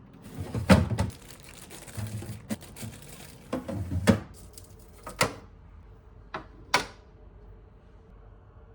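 Kitchen handling noises: about six sharp knocks and clacks of things being picked up and set down, with soft rustling between them.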